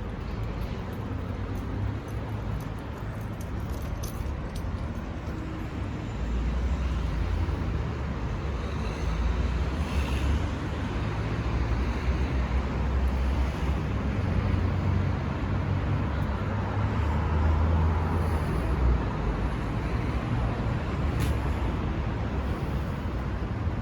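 City street traffic: a steady wash of passing cars and other vehicles, with a deeper engine rumble coming in about six seconds in and staying.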